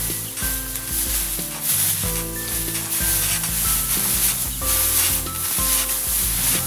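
Dry rice straw rustling and swishing under bare feet as rice stalks are trodden and scuffed to thresh off the grain by hand. Music plays underneath.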